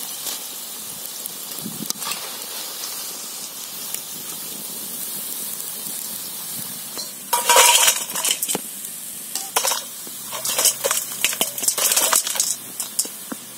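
Drumstick-leaf pakoras sizzling in hot oil in an aluminium kadai, the crackling sizzle that tells they are cooked through. From about seven seconds in, a run of sharp clatters and clinks as the crisp pakoras are tipped from a wire skimmer onto a steel plate.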